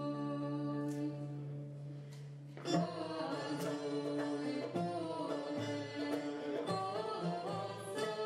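Ensemble music: one long held note, then about three seconds in an oud and a metal goblet drum (darbuka) come in, with plucked oud melody over sharp drum strokes.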